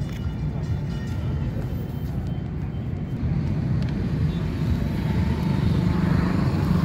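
Steady low mechanical rumble, growing a little louder with a rising hiss from about four seconds in.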